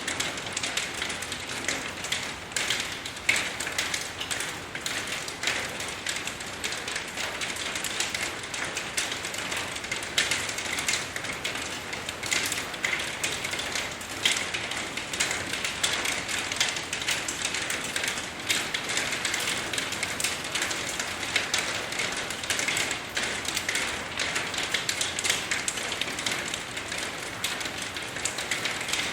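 Steady rain falling, a continuous hiss with a dense patter of individual drops ticking on a surface.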